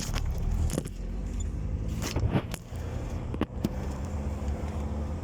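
Car running on the road, its engine and road noise heard from inside the cabin, with a few sharp clicks or knocks at irregular moments.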